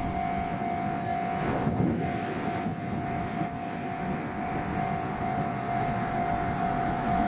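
Steady low rumble of a passing vehicle with a steady high-pitched tone held throughout.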